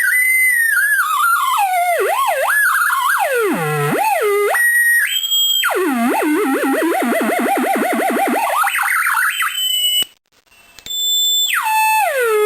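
Homemade drone machine built from audio oscillators, making electronic tones that swoop and warble up and down in pitch. The tones cut out briefly about ten seconds in, then return and step down into a steady held tone near the end.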